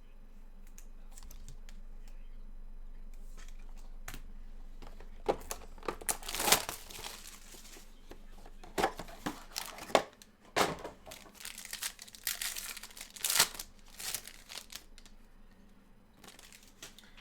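Trading-card pack wrappers being torn open and crinkled by hand: a run of irregular crackling rustles with a few sharper tears, starting about five seconds in and dying away near the end.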